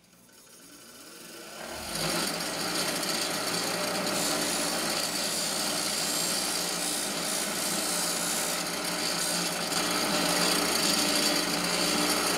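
Delta 6-inch bench grinder spinning up over the first two seconds, then running steadily as the cut end of a polyethylene cutting-board strip is held to its wheel to smooth it, a continuous rasping grind.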